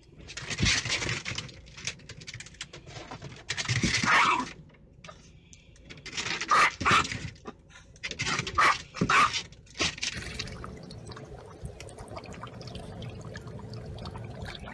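Dog noises in short, irregular bursts, then steady water sloshing and splashing as a husky paws and noses in a steel water bowl, about ten seconds in.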